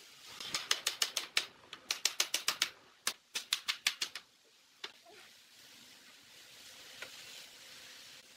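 Claw hammer striking a wooden block held against a pine frame's top rail, tapping the joint into place. It comes as three quick runs of sharp taps over about four seconds, followed by a single tap.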